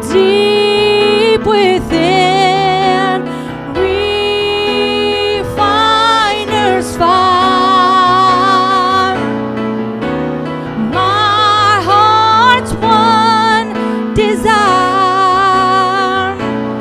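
Gospel song performed live: a man singing long held notes with vibrato into a microphone, a woman's voice singing with him, over keyboard playing piano chords.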